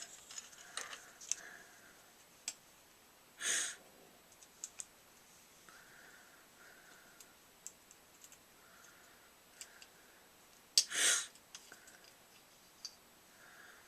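Scattered small clicks and taps of a paintball marker and its air tank being handled and fitted, with two short rushing noises about three and a half and eleven seconds in.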